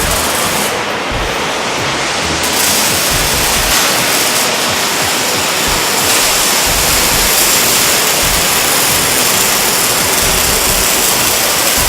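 Welding arc hissing and crackling steadily, a dense, even noise.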